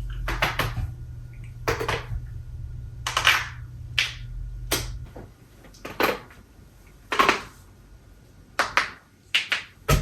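A series of sharp pops and cracks from a person's back and neck joints being cracked, about a dozen, unevenly spaced. A low hum fades out about halfway through.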